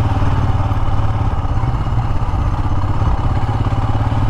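Royal Enfield Himalayan's 411 cc single-cylinder engine running steadily under way, its even firing pulses to the fore.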